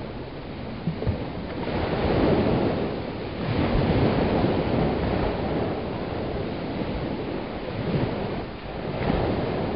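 Small, gentle waves breaking and washing up a sandy beach, the surf noise swelling and easing every few seconds.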